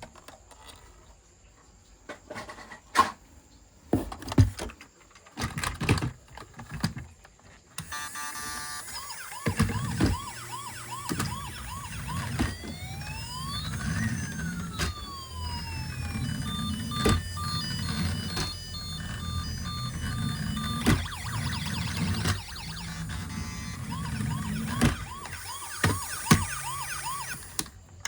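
Plastic toys clicking and knocking as they are handled. About a third of the way in, a toy vehicle's electronic sound module starts playing siren and alarm effects: fast repeating chirps, rising and falling wails and beeping over a low engine-like hum, with the odd knock of the toy.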